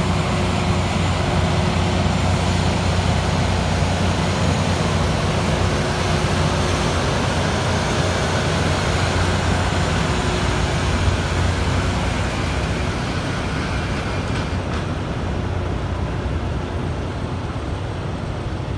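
Loram rail grinder train passing close by: diesel engines running under a dense, steady grinding noise as its grinding stones work the rails. It eases off slightly near the end as the train moves away.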